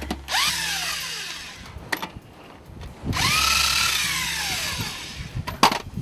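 Cordless drill with a socket spinning lug nuts off a wheel, run in two bursts: each time the motor whine rises as it spins up, holds, and falls away as it stops. A sharp knock comes near the end.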